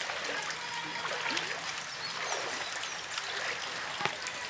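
Heavy rain falling, with water trickling and dripping into floodwater: a steady hiss full of small drip splashes. One sharp knock about four seconds in.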